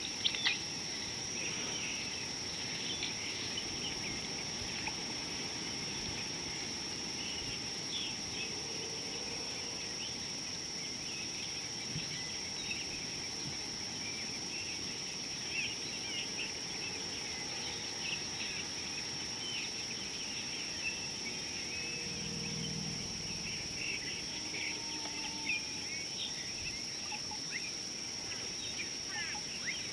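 Outdoor ambience: insects holding two steady high-pitched tones, with frequent short bird chirps and calls over them.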